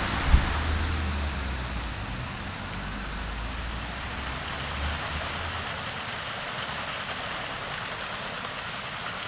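Water from a stone fountain's jets splashing and pouring steadily. A sharp thump comes just after the start, followed by a low rumble that fades out about halfway through.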